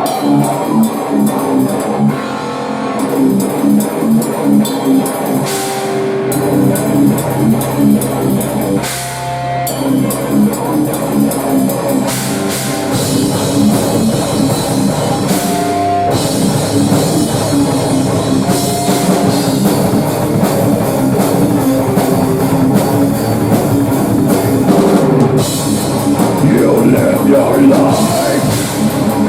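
Live rock band playing: electric guitars over a drum kit with a steady, driving beat.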